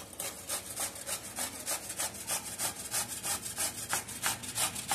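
Raw papaya being grated on a stainless-steel box grater: a steady run of quick rasping strokes, about four or five a second.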